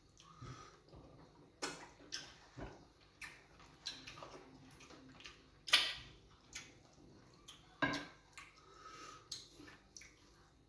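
Eating sounds from fufu with groundnut soup: an irregular string of wet mouth smacks and sharp clicks, with the odd clink of dishes, the loudest click a little past halfway.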